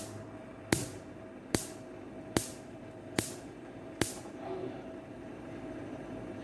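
Gas stove burner's spark igniter clicking as it is lit: six sharp ticks at a steady pace, about one every 0.8 s, which then stop, over a faint steady hum.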